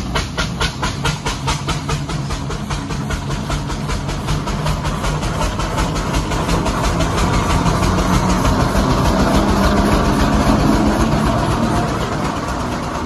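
Steam traction engine running along a lane towing a living van: its exhaust chuffs at a quick, even beat, and the engine grows louder as it draws close and passes, loudest about ten seconds in, then easing off.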